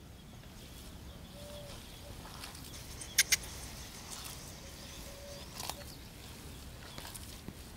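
Quiet outdoor ambience with two short, faint bird notes, and two sharp clicks about three seconds in.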